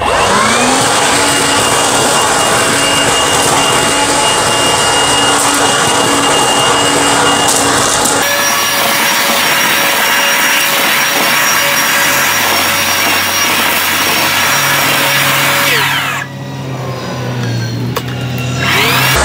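Kaltmann Titanium 40V brushless cordless leaf vacuum-blower running in vacuum mode, a steady whine over a rush of air as it sucks up dry leaves from grass. The motor spins up at the start, winds down about sixteen seconds in, and spins up again near the end.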